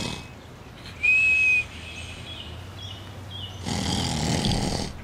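A short, steady, high whistled note like a bird call, a few faint chirps, then a breathy rushing sound lasting about a second near the end.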